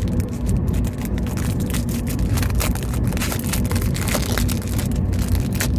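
Foil trading-card pack being torn open and its wrapper crinkled: a dense run of quick crackles, busiest in the second half, over a steady low rumble.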